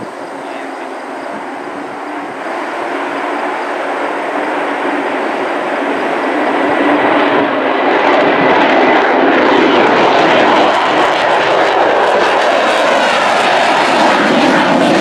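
F-35A Lightning II fighter jet's single engine growing steadily louder as the jet approaches and passes low overhead. It is at its loudest from about eight seconds in.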